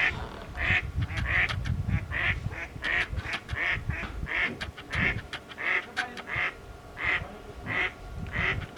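A duck quacking over and over in a steady series, about one quack every two-thirds of a second.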